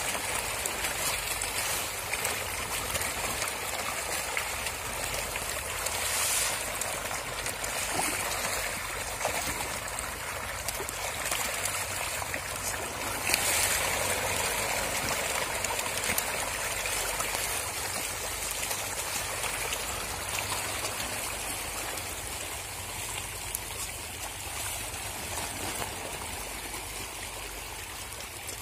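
A dense shoal of tilapia splashing at the pond surface in a feeding frenzy: a steady wash of many small splashes that grows a little quieter near the end.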